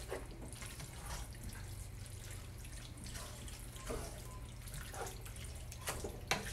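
Wooden spoon stirring saucy ground beef and diced tomatoes in a pot: soft wet squelching and scraping, with a few light knocks of the spoon against the pot, over a steady low hum.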